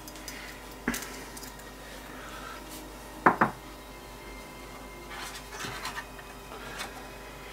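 Small clicks, taps and rubbing of plastic and metal parts being handled inside an opened-up Pioneer CDJ-800 MK2: one click about a second in, two close clicks just after three seconds, then light rustling and tapping.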